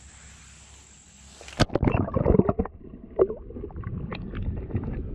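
Faint steady stream hiss, then about a second and a half in the camera plunges into the trout stream with a sharp splash. After that everything is muffled: underwater sloshing, gurgling and knocks against the camera housing.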